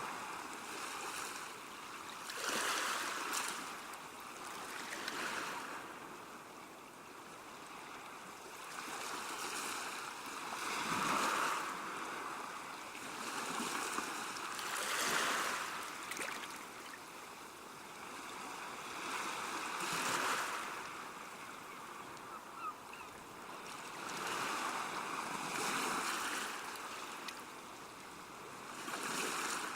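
Sea waves breaking and washing on the shore, the surf swelling up and falling back every few seconds.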